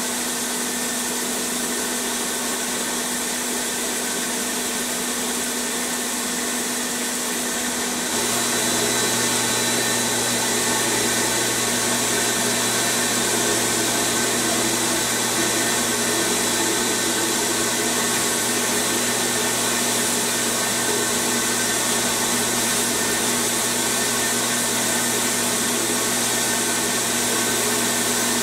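Blast gun in a sandblasting cabinet hissing steadily as it strips rust from a small pressed-steel toy truck part. A low steady hum joins about eight seconds in, and the whole sound gets slightly louder.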